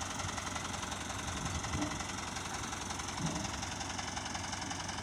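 Diesel engine of a mobile crane running steadily under load as it lifts a slung bundle of ductile iron pipes.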